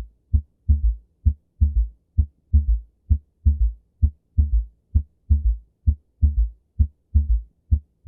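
Recorded heartbeat with a third heart sound (S3, ventricular gallop): a steady three-beat rhythm repeating a little faster than once a second, a single first sound followed by the second sound with an extra sound close after it. An S3 after the second sound is the sign of an overly compliant ventricle filling in early diastole, as in heart failure.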